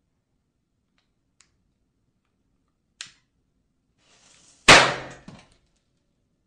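A small firework going off: a brief hiss, then a single sharp bang that dies away over about half a second, followed by a few small crackles. Two lone clicks come before it.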